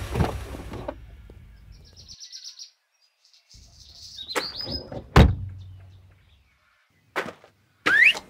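Background music fades out, then small birds chirp in short bursts, and a van door shuts with a single loud thunk about five seconds in, followed by a lighter click near the end.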